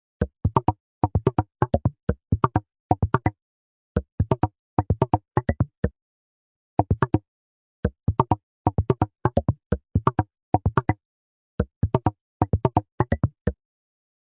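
A person coughing in many short fits of two to four quick coughs, each fit cut off by silence. This is a productive cough, loose with phlegm.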